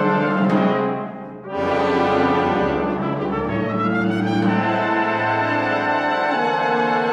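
A full brass band playing sustained chords. The sound falls away briefly about a second in, then a loud full chord with deep basses comes in at about a second and a half.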